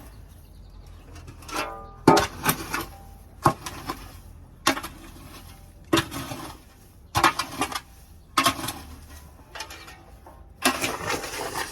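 Repeated scraping and scooping strokes of a hand tool clearing litter from a chicken coop floor, about one stroke a second.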